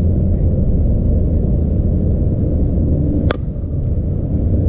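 A softball bat hitting a pitched softball once: a single sharp crack about three seconds in, over a steady low rumble.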